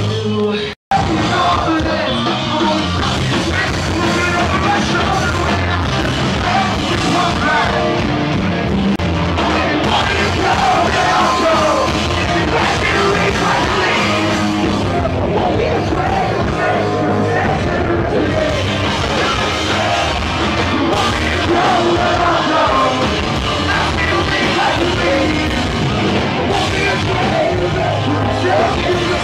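A live punk rock band playing loud with a singer, heard from within the crowd. The sound cuts out abruptly for an instant about a second in, then the band carries on.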